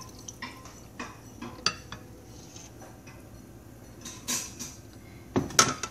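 Scattered light clinks and knocks of a glass blender jar against a metal cooking pot, with a louder clatter about five and a half seconds in.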